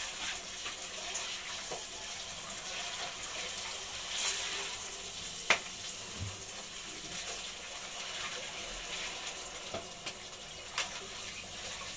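Pieces of boiled marlin meat frying in oil in a pan: a steady sizzling hiss with scattered crackles and one sharp click about five and a half seconds in.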